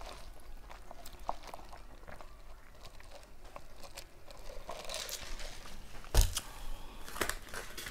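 Soda sipped through a straw from a large plastic fountain cup, with small wet mouth and swallowing sounds, and a single sharp thump about six seconds in.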